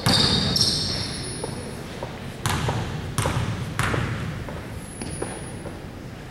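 Basketball bouncing on a gym floor: a thud near the start, then three dribbles about two-thirds of a second apart in the middle, each echoing briefly. Sneaker squeaks come in between.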